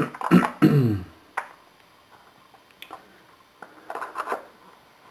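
Screwdriver and plastic drain wrench turning a shower base's threaded drain ring. In the first second there are short creaks that fall quickly in pitch, then single sharp clicks and a short cluster of clicks about four seconds in.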